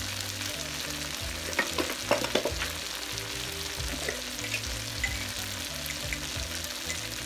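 Blended onion and pistachio paste frying in hot oil in a nonstick pan: a steady sizzle with scattered crackling pops, and a short cluster of sharper pops about two seconds in.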